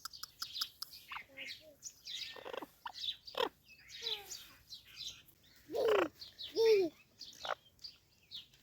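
Pet parrots chirping and calling in a quick string of short calls, with two louder arching squawks about six and nearly seven seconds in.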